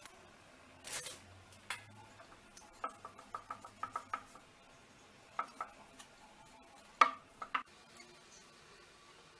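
A wooden rolling pin knocking and clacking on a wooden chopping board as it flattens slices of bread: a run of quick taps around three to four seconds in, and a few sharper knocks, the loudest about seven seconds in.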